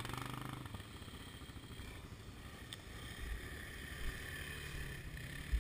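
ATV engine running faintly at low revs, with rustling noise and a low thump near the end.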